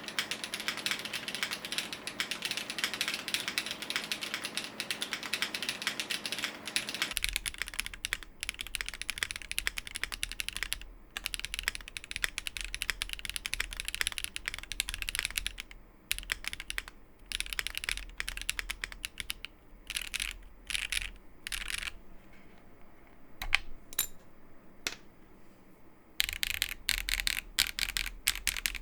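Typing on a Functional.co Burly 65 mechanical keyboard with HMX Chu switches, an FR-4 plate and GMK Botanical keycaps. It starts as fast continuous typing, breaks into bursts with short pauses, slows to a few single keystrokes, then picks up fast again near the end.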